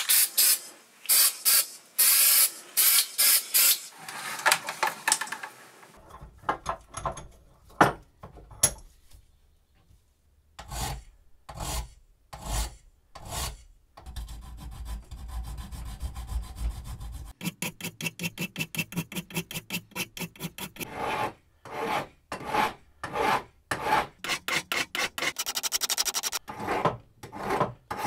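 Hand file scraping back and forth over a small metal pin clamped in a vise, in repeated strokes that come slowly at first and quicker in the second half. The first few seconds hold sharp hissing bursts from an abrasive blast cabinet.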